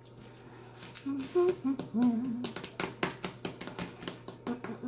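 A woman hums a few short notes while her hands press and pat raw ground beef flat in a metal sheet pan. In the middle comes a run of quick, sharp pats, several a second.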